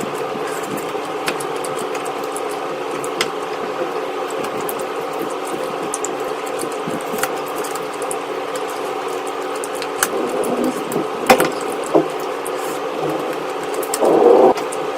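A steady mechanical hum with several held pitches, broken by scattered sharp clicks and a short, louder rustling noise near the end.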